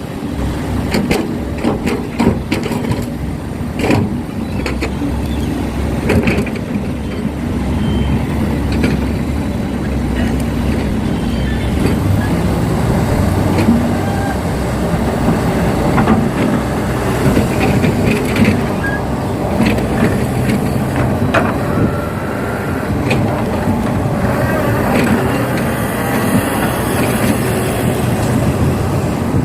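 Heavy diesel engines running steadily while an excavator loads a dump truck, with scattered clanks and knocks through it.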